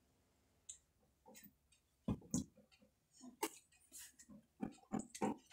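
Plastic cups of packaged drinking water being handled in a cardboard carton: irregular crinkles and light knocks of plastic and cardboard, starting about two seconds in.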